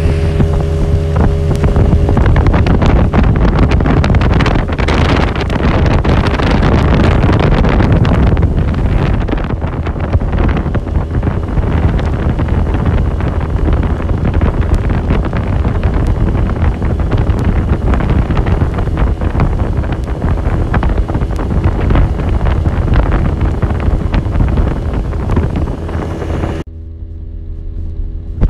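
A 60 hp outboard motor running a small motorboat under way, with heavy wind buffeting the microphone and rushing water over the engine's steady hum. About two seconds before the end the wind and water noise cuts off and the engine tone comes through clearly.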